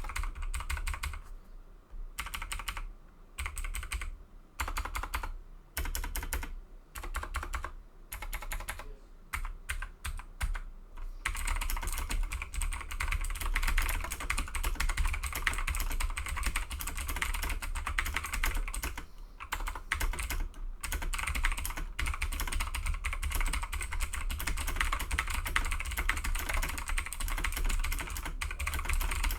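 Typing on a Razer BlackWidow Tournament Edition Chroma V2 mechanical keyboard with clicky Razer Green switches: short bursts of keystrokes separated by pauses, then steady continuous typing from about eleven seconds in, with a low rumble underneath.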